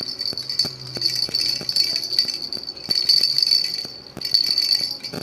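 Baby rattle shaken continuously: a rapid stream of rattling clicks with a high ringing note, pausing briefly about four seconds in and then starting again.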